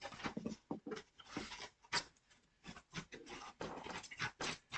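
Packaging being handled: a quick series of short rustling and crinkling scrapes as a book is taken out of its box.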